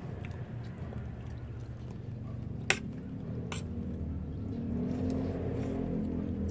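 A metal spoon clinks twice against the dishes, a little under a second apart, over a low steady rumble.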